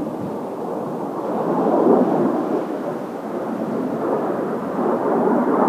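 Turbofan jet noise from Blue Impulse Kawasaki T-4 jets flying overhead: a steady rumble that swells about two seconds in and again near the end.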